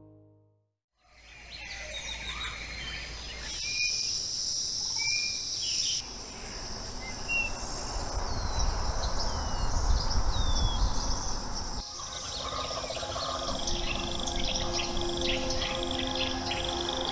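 Forest ambience: birds chirping in short calls over a steady high buzz of insects, with a low rumble underneath. A faint steady hum comes in about thirteen seconds in.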